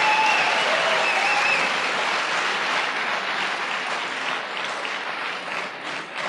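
Audience applauding in a large hall. The applause slowly dies down and thins out into scattered individual claps near the end.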